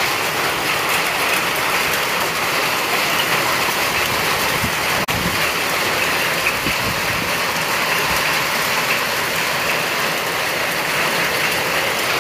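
Heavy hail and rain falling steadily on a sagging cloth canopy and marble paving, an even dense patter, with a momentary break about five seconds in.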